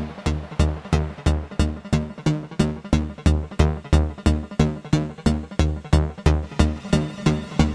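AE Modular synthesizer playing a sequenced electronic pattern of short, evenly spaced low notes, about three a second, each with a sharp clicky attack.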